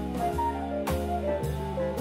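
Small jazz combo playing live: keyboard, hollow-body electric guitar and drum kit, over a moving bass line, with a sharp drum and cymbal accent just before a second in.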